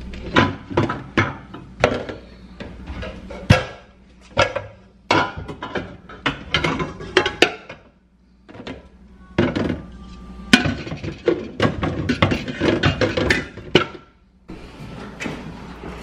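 Metal pots, pans and lids clanking against each other as they are stacked into a kitchen cabinet, in irregular runs of sharp knocks with a short pause about halfway through. Background music plays underneath.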